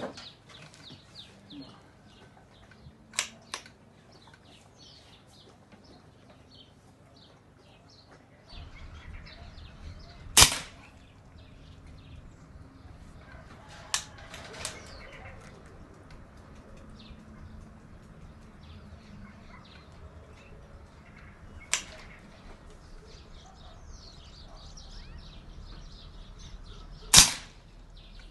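Pre-charged pneumatic (PCP) air rifle, a P10, firing two shots about 17 seconds apart, each a sudden loud report, with a few fainter clicks between them as the action is worked to load the next pellet. Small birds chirp in the background.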